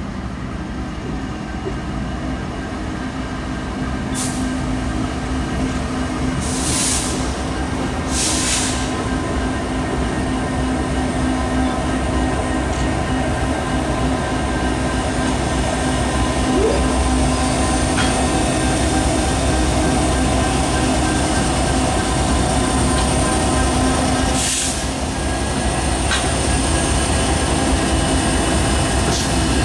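Norfolk Southern diesel-electric locomotives rolling slowly past, engines running with a steady low drone and rumble that grows louder about four seconds in as they draw close. Several short high-pitched hissing bursts cut through, two close together about seven and eight seconds in and another near the end.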